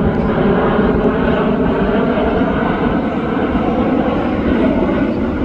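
Jet airliner engines heard close by: a loud, steady rushing noise with a faint hum of engine tones through it.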